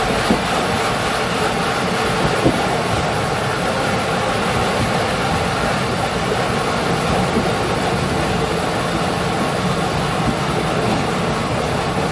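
Railway coach wheels rolling along the rails, heard from close beneath the coach: a steady running noise of wheel on rail, with two brief sharp clicks in the first few seconds.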